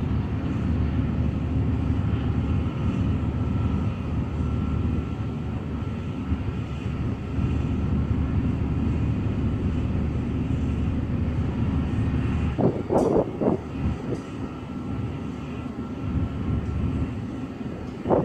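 Oil drilling rig machinery running with a steady low rumble. A few short, louder bursts come about 13 seconds in, and another near the end.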